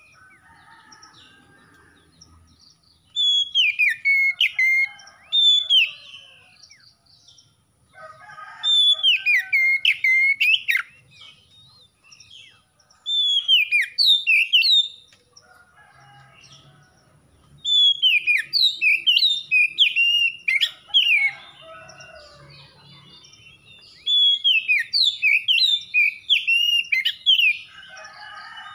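Oriental magpie-robin (kacer) singing in loud bouts of rapid, varied whistled phrases, about six bouts of one to four seconds each with short pauses between them. The bird is in full song (gacor).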